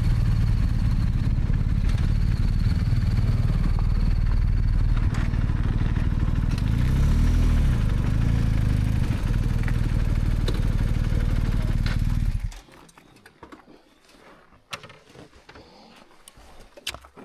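Motorcycle engine running under way, mixed with wind noise. The engine pitch rises and falls briefly about halfway through, then the sound cuts off abruptly, leaving a quiet stretch with a few faint clicks.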